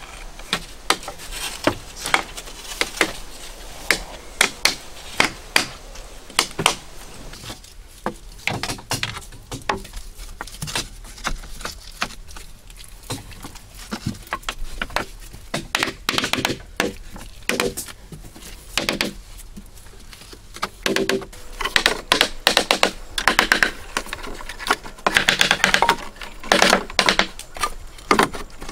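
Bamboo poles and split bamboo knocking and clattering as they are handled and laid in place: irregular hollow wooden taps, turning into dense clusters of quick clicks near the end.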